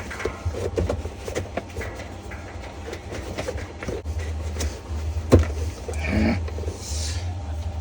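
Metal clicks and knocks from work on a Whirlpool washer's stuck washplate, with one sharp knock about five seconds in, over a steady low hum.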